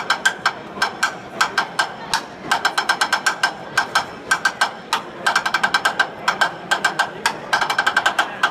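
Drumsticks beating a fast rhythm on a hard surface, each stroke a sharp click, with quick rolls about five seconds in and again near the end.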